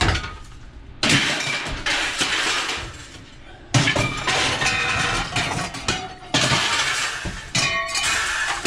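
Pieces of scrap iron and steel thrown from a van onto a scrap pile, crashing and clanging several times, about every two seconds, with metallic ringing after the later crashes.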